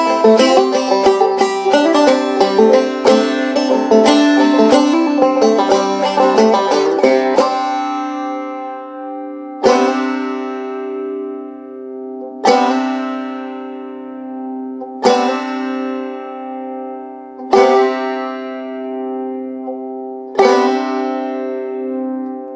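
Bluegrass instrumental ending: rapid banjo picking stops about seven and a half seconds in. A ringing chord is then struck five more times, about every two and a half seconds, each strike fading slowly like a tolling bell.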